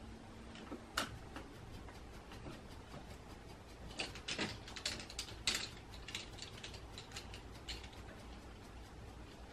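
Irregular sharp clicks and light taps, sparse at first, then bunched together about four to six seconds in, over a faint steady background hum.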